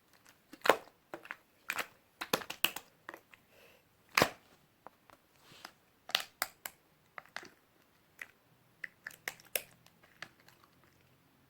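White slime being squeezed and pressed by hand, giving irregular sharp clicks and pops. They come thick and loud for the first several seconds, then thin out and grow fainter near the end.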